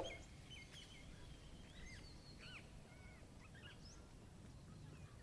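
Faint, scattered bird chirps over a quiet background hiss.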